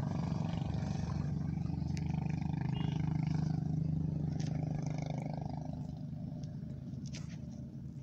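A steady, low, engine-like hum that fades away over the last few seconds, with a few faint clicks.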